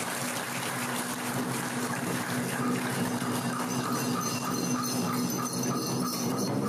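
Water splashing and churning in a water-puppet pool, over a steady low tone. About four seconds in, a quick run of short high pips joins, about three a second.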